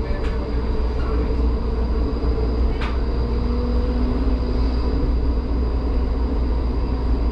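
HermeLijn tram running slowly, heard from inside the cab: a steady low rolling rumble with an electric motor hum and a thin high whine. There is a single short click about three seconds in.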